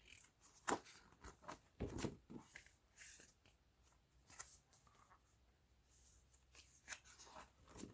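Faint rustling and light taps of stiff paper as the pages of a desk calendar are flipped and handled, in short irregular bursts.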